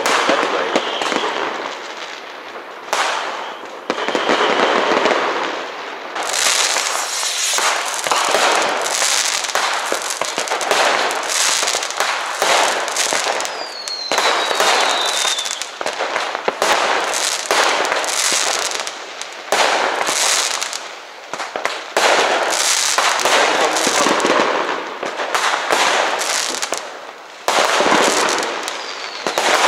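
Many fireworks and firecrackers going off at once, a dense barrage of bangs and crackling that never lets up. About halfway through, a whistle falls in pitch.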